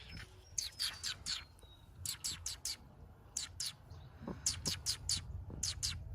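A small bird chirping in quick runs of two to four short, high, slightly falling chirps, over a low steady background rumble.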